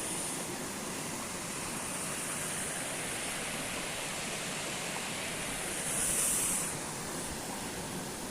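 Steady rush of river water, with a brief louder hiss about six seconds in.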